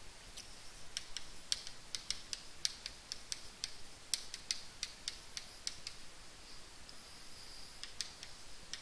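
Chalk writing on a blackboard: a string of short, irregular taps and scratches as letters are written.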